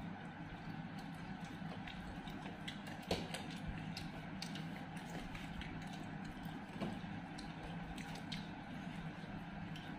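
Eating with the hands: chewing and fingers working food on plates, heard as many small clicks with a sharper click about three seconds in and another near seven seconds, over a steady low hum.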